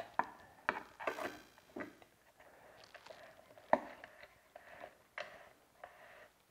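Faint, scattered clicks and light scrapes as a 3D-printed carbon-fibre nylon fan blade is turned by hand onto the threaded motor shaft of a Ridgid shop vac.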